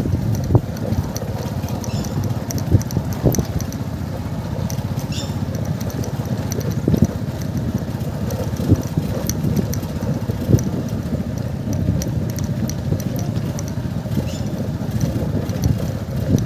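Motorcycle engine running at low speed, heard from on board, on a rough dirt track, with scattered knocks and rattles from bumps.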